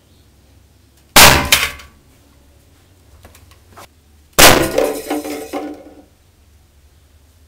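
Two shots from a homemade compressed-air dart rifle, each a sharp crack and hit about three seconds apart. The second is followed by a ringing clatter of the struck target that lasts about a second and a half.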